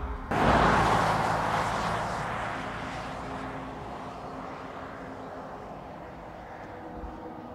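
Toyota Grand Highlander HybridMax SUV driving by on an asphalt road: tyre and road noise, loudest in the first second, then fading steadily as it moves away.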